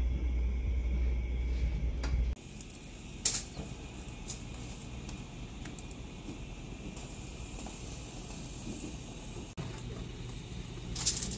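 Gas stove burner flame with a steady low rumble under the grill rack, dropping abruptly to a quieter hiss after a couple of seconds; a few sharp clicks, the loudest about three seconds in, with more near the end.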